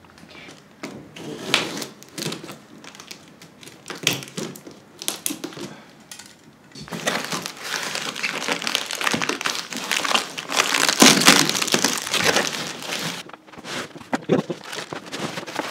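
Plastic and foam packing wrap crinkling and crackling as it is pulled out of a cardboard box. Scattered crackles at first, then a thick run of crackling from about seven seconds in until about thirteen, loudest around eleven seconds.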